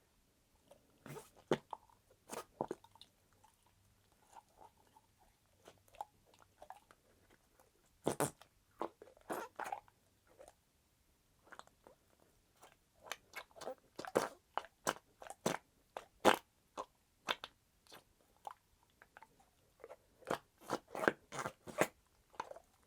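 Pink Flarp noise putty being squeezed, stretched and pressed by hand, giving irregular short wet squelching sounds with quiet gaps between. The sounds come thicker in the second half.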